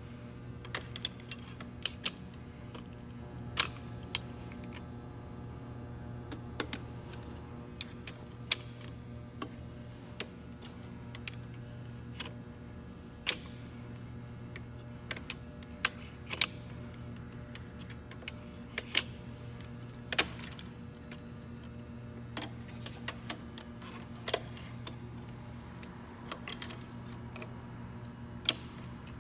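Scattered, irregular sharp clicks and clinks of hand tools and metal parts being handled while a gearbox is taken apart, over a steady low hum.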